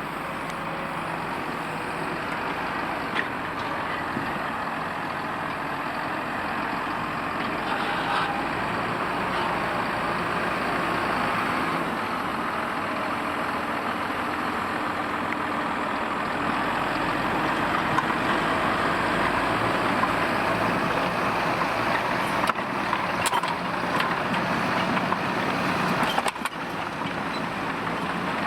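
Valtra T.153 tractor's diesel engine running steadily while it pulls a plough, growing gradually louder, with a few brief clicks near the end.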